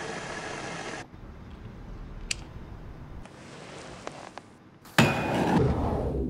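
Designed sound effects: a hiss that cuts off abruptly about a second in, a sharp click a little after two seconds, a second hiss, then a loud hit about five seconds in with a brief ringing tone, followed by a louder rushing sound.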